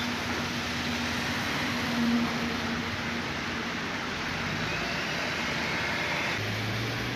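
Street traffic in heavy rain: a steady hiss of rain and tyres on a wet road, with the low hum of passing vehicle engines.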